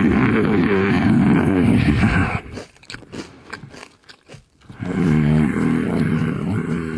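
Close-miked chewing and crunching of potato chips, in two loud stretches with a gap of scattered small clicks between them about halfway through. A low hum with a wavering pitch runs under the chewing.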